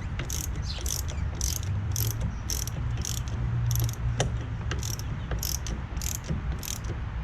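Ratchet wrench clicking in even strokes, about two a second, as an engine-mount bolt is run down snug, over a steady low hum.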